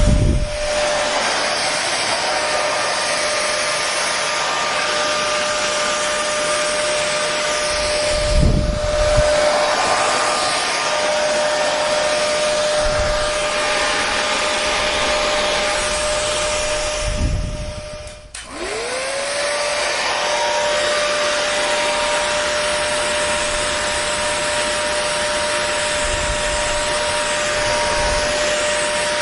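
Hair dryer blowing steadily, a rushing airflow with a steady motor whine. Just past halfway the sound briefly drops away, then returns, its whine rising back up to pitch as the motor spins up again.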